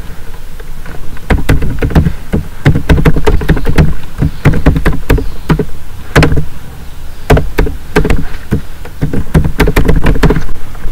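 Computer keyboard typing: quick, loud key clicks with a thump to each stroke, coming in short runs with brief pauses between them.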